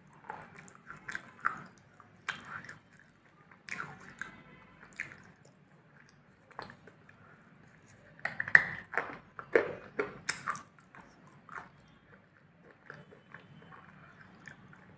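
A person biting and chewing a dark grey lump that is powdery and soft inside with a thin crunchy outer layer: close, crisp bites and crackly chewing in irregular bursts, busiest and loudest about two-thirds of the way in.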